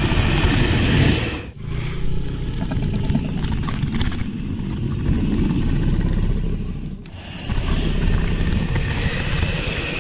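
Dragon sound effects: a deep, rumbling dragon roar and growl, in three long stretches broken by short dips about a second and a half in and about seven seconds in.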